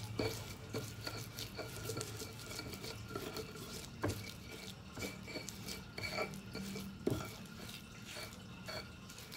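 Stone pestle stirring and pressing a sticky chili, palm-sugar and tamarind rujak paste in a stone mortar (cobek and ulekan), with irregular scraping and knocks of stone on stone, a few sharper ones near the middle.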